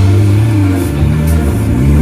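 Background rock music with a vehicle engine revving under it, its pitch dipping about one and a half seconds in and rising again.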